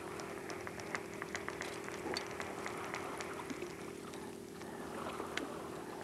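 Small water sounds lapping and clicking irregularly against a boat's hull, over a steady low hum.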